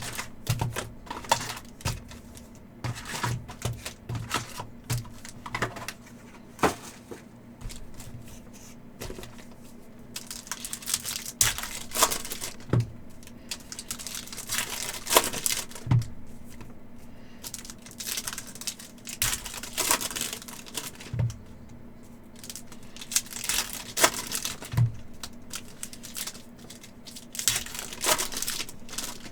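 Upper Deck hockey card packs being opened by hand: foil wrappers torn and crinkled, with irregular sharp clicks of cards being handled and stacked.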